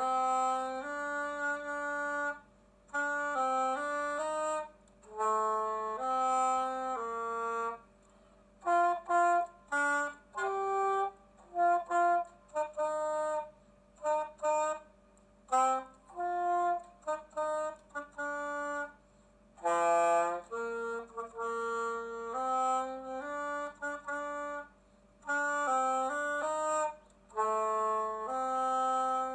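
Alto saxophone playing a melody solo, one note at a time in short phrases with brief breaths between them.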